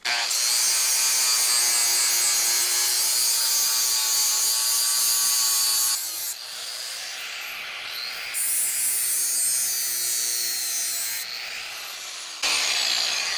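Hand-held grinder running with a wavering motor whine, grinding welded-on metal off a cast iron bench vise with a harsh hiss. It bites in hard for about six seconds, eases off, then bears in again twice.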